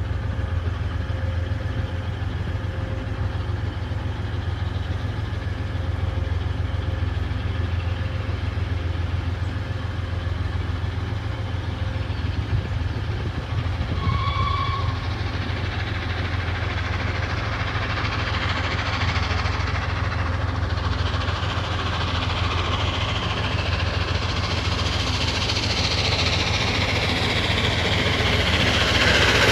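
A train approaching, its noise growing steadily louder over the last ten seconds or so, over a steady low hum. A brief high tone sounds about halfway through. The approaching train is the steam locomotive Tornado 60163, a Peppercorn A1 Pacific, with its railtour coaches.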